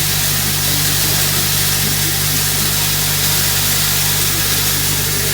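A feed-mixing machine running steadily and loudly: a steady low hum under a strong, even hiss.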